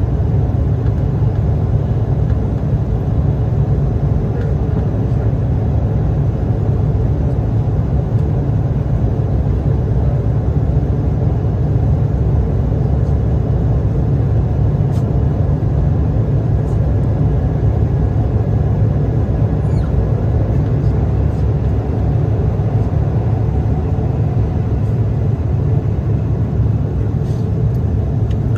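Steady cabin noise inside a climbing Bombardier CRJ-700 regional jet: its rear-mounted General Electric CF34 turbofans at climb power and the rush of air over the fuselage, an even low drone.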